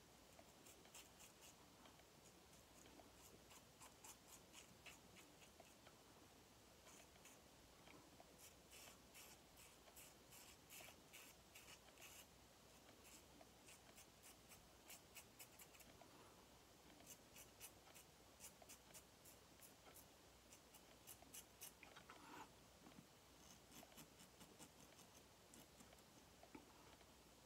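Double-edge safety razor, a Yaqi Katana head with a Bic blade, scraping through lathered stubble: a faint, crisp rasping in several runs of quick strokes.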